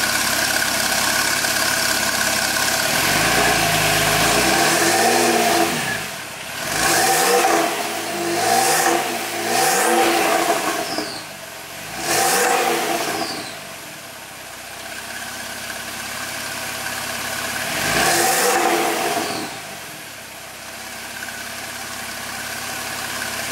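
2011 Porsche 997.2 Turbo S's 3.8-litre twin-turbo flat-six, heard at the exhaust. It idles, is blipped up about five times, each rev falling back to idle, and then settles back to a steady idle.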